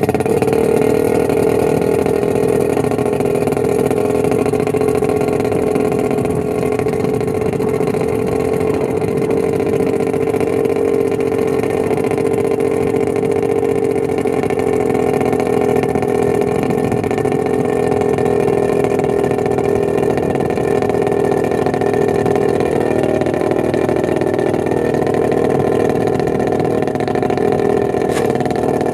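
Suzuki outboard motor running steadily at idle out of the water, fed by a garden hose on its leg for cooling.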